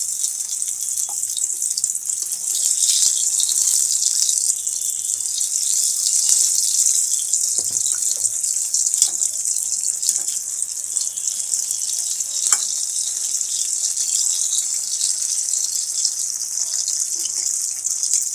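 Chicken drumsticks deep-frying in hot oil for their second fry, a steady sizzle with a few light clicks and pops.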